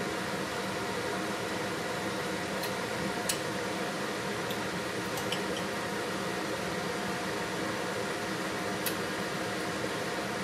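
Steady fan hum, with a few faint clicks of a metal spoon against a bowl as soup is ladled and tasted.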